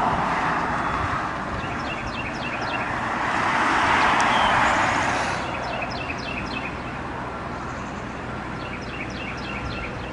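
A vehicle passes on a nearby road, its noise swelling to a peak about halfway through and fading away, while a bird sings short runs of quick chirps every few seconds.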